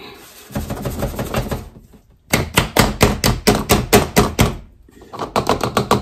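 Rapid, even knocking, about six knocks a second, as a large glass Ball jar full of cassava flour is tapped and jostled to settle the flour down in the jar. The first two seconds hold softer scraping and handling; the knocking starts about two seconds in.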